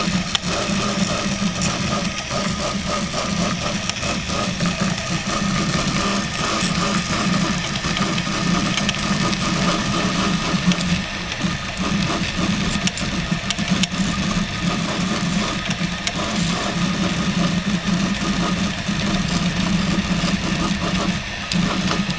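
RepRap Prusa Mendel 3D printer printing at high speed (120 mm/s): its stepper motors and belts whir in quick, constantly changing runs over a steady low hum, with scattered faint ticks.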